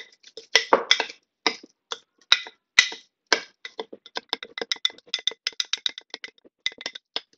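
A utensil stirring sourdough starter (starter, water and whole wheat flour) in a container, knocking and clinking against its sides in a quick, irregular run of clicks, several a second, with a couple of brief pauses.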